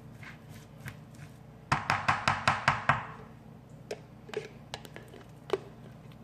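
Spoon stirring chicken salad in a bowl, clicking against the bowl. About two seconds in comes a quick run of about seven loud knocks, then softer scattered clicks.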